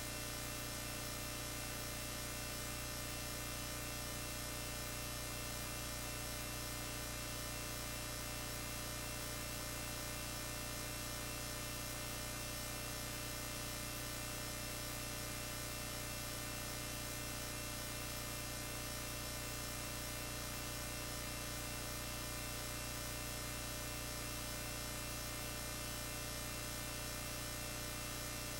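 Steady electrical mains hum with many evenly spaced overtones, unchanging, with no other sound.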